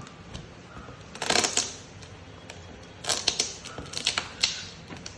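Parcel packaging being opened: three bouts of crackling and crunching from the cardboard and plastic wrapping, with scattered clicks between them.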